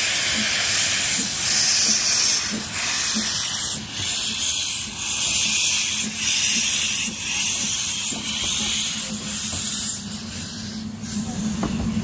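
Narrow-gauge steam locomotive letting off steam: a loud hiss that swells and dips about once a second, then trails off near the end, leaving a low steady hum.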